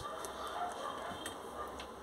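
Pause in speech: faint steady room noise with a couple of faint ticks.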